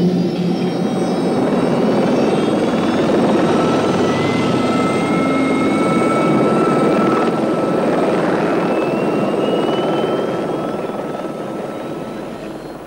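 Helicopter in flight: a loud, steady rush of rotor and engine noise with a thin whine that slowly rises in pitch. It fades down over the last few seconds.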